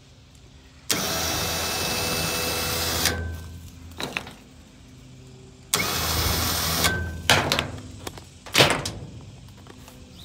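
Harbor Freight 5,000 lb ATV winch's electric motor running in two short bursts, about two seconds and then just over a second, each ending in a brief high tone as it stops, followed by a few sharp clicks and knocks.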